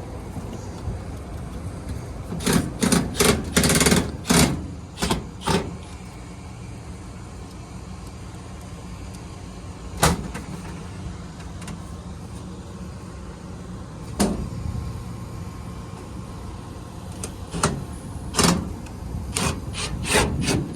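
Sharp knocks and clatters of sheet metal and tools being handled on a rooftop HVAC unit: a quick run of them early on, single hits later, and another run near the end, over a steady low rumble.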